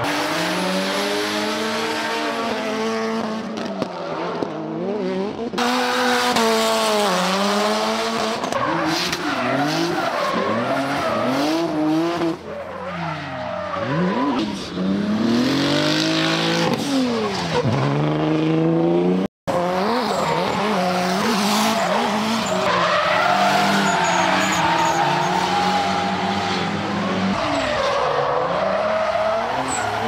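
Drift cars sliding at full throttle: engines revving up and down over and over as the throttle is worked through the drift, over the hiss and squeal of spinning, sliding tyres. The sound changes abruptly several times between cars, with a brief drop to silence about two-thirds of the way through.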